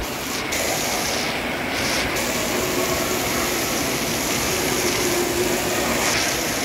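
Steady roar of rushing, churning water in a water slide's splash pool, loud and even throughout.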